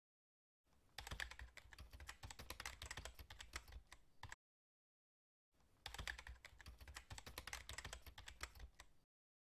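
Typing sound effect: rapid clicking of keys in two runs of about three and a half seconds each, with a silent gap of about a second between them, as text is typed out letter by letter on screen.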